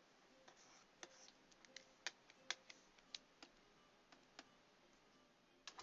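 Faint, irregular clicking of computer input devices, about a dozen short, sharp clicks spread unevenly over a few seconds against near silence.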